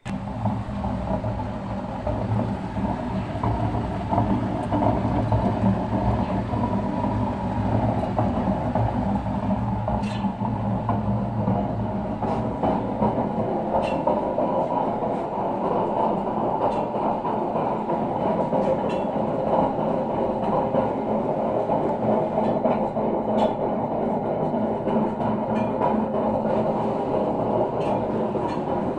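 Washing machine drum turning with a loud, steady grinding rumble that starts abruptly, the sign of extremely worn drum bearings.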